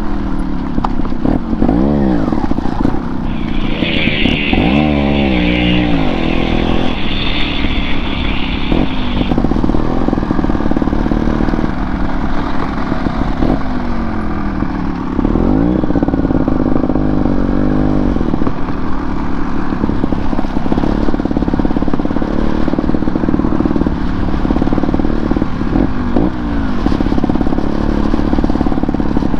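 Dirt bike engine running along a rough track, its revs rising and falling with throttle and gear changes. A bright hiss joins in a few seconds in and lasts about six seconds.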